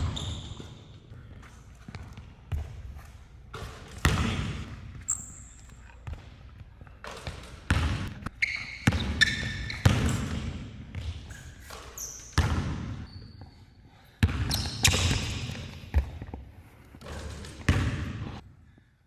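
A basketball dribbled and bounced on an indoor court in live 1v1 play: irregular sharp bounces, some hard, with short high squeaks in between.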